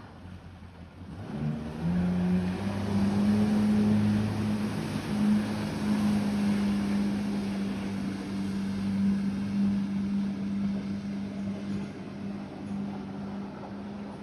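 Jet ski engine speeding up about a second and a half in, then running steadily at one high pitch as the craft races away across the lake, slowly fading with distance.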